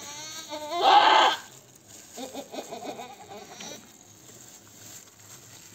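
A goat bleats loudly once, about a second in, then gives fainter, shorter calls a second or two later.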